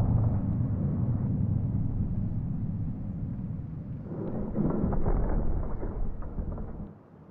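A deep, heavy rumble that eases slightly, swells again past the middle and then cuts off sharply near the end.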